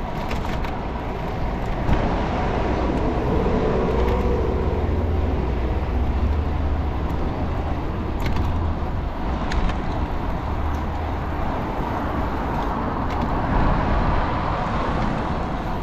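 Street traffic: cars passing with a steady rumble of engines and tyres, and a brief faint whine about three seconds in.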